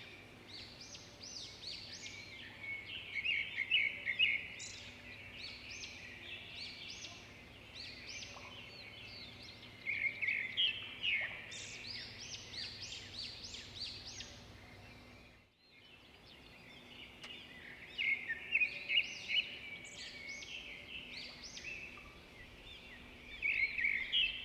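Small birds singing in spells of quick, high chirps and trills over steady outdoor background noise; the sound cuts out briefly a little past the middle.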